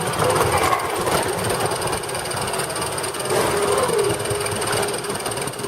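Small live-steam model locomotive running: a steady mechanical hiss and rattle, with voices faint in the background.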